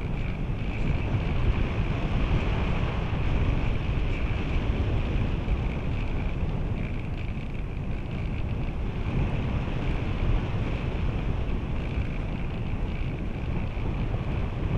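Air rushing past the onboard camera of a radio-controlled glider in flight: wind rumble and buffeting on the microphone, with a steady high whistle over it.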